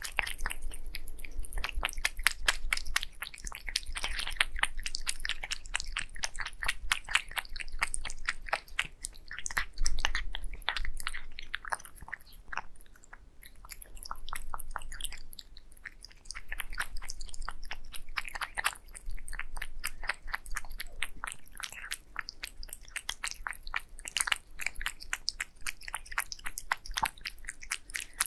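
A cat chewing and licking wet cat food and raw egg yolk, close to the microphone: a fast run of wet clicking mouth sounds, easing off briefly about halfway through.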